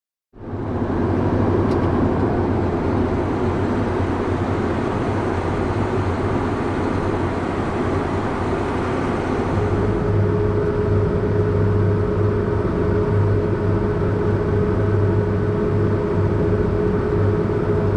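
Heavy diesel engine running steadily, with a constant low hum; a steady higher tone joins about ten seconds in.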